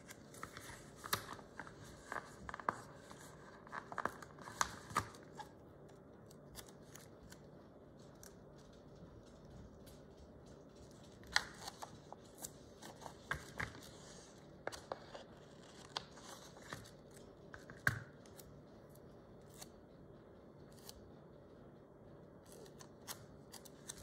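Faint, scattered clicks and short rustles of paper and sticker sheets being handled, busiest in the first few seconds and again midway.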